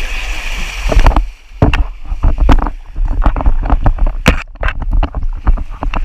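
Water rushing and splashing down a water slide as a rider slides through it, heard close up at a selfie-stick camera, with many sharp irregular knocks and splashes over a low rumble.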